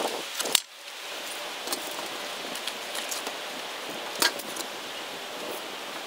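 Wind rustling steadily, with a few sharp clicks: a loud one just over half a second in and another about four seconds in.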